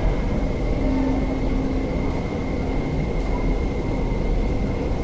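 MTR Tuen Ma Line train running through an underground station without stopping, heard as a steady rumble through the platform screen doors, with a thin steady whine above it.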